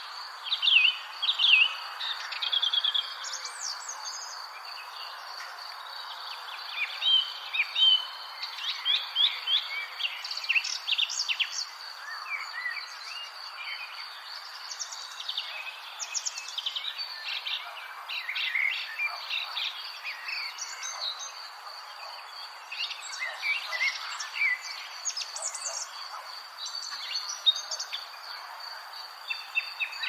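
Several songbirds chirping and singing in a busy, overlapping chorus of short calls and trills, over a steady thin high tone and a soft hiss.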